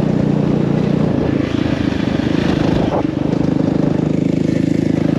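KTM 450 four-stroke single-cylinder dirt bike engine running under the rider at riding speed. The engine note eases off about a second in and picks up again around three seconds in.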